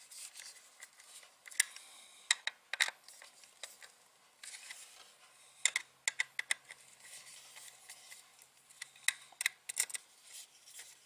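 Screwdriver tightening the small M3 screws of a motor assembly on a robot car chassis: scattered light metallic clicks and ticks, some in quick clusters of several, with short quiet gaps between.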